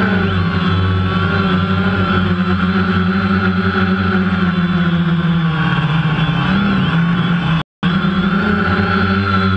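DJI Phantom quadcopter's electric motors and propellers whirring loudly and steadily, heard from the GoPro on its own frame. The pitch shifts a little as the drone manoeuvres, and the sound cuts out for an instant near the end.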